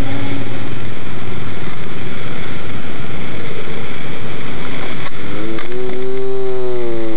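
Loud, heavily distorted soundtrack music, a dense wash of noise; about five seconds in, a pitched tone bends up and then slowly back down.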